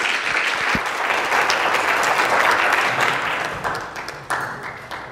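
A small audience applauding, steady at first, then thinning out into a few last scattered claps and dying away near the end.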